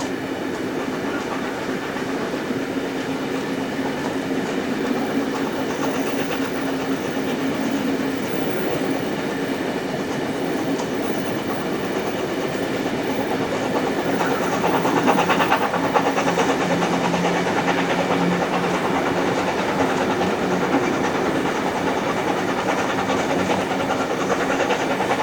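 Passenger train hauled by steam locomotive 3801, heard from aboard: carriage wheels running steadily on the rails, growing louder about halfway through.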